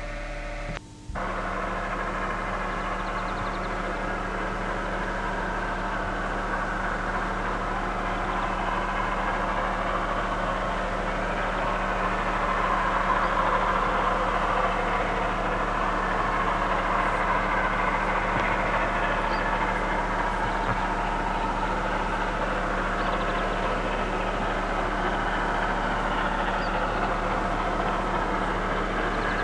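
Steam locomotive J1211 accelerating with its train, heard from a distance as a steady rushing sound without distinct exhaust beats. It swells over the first dozen seconds and then holds, over a steady low electrical hum from the recording. The sound drops out briefly about a second in.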